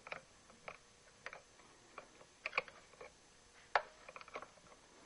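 Light, irregular clicks and taps as a spade bit in its sharpening fixture is handled and fitted into a Drill Doctor sharpener, the sharpest click a little past halfway.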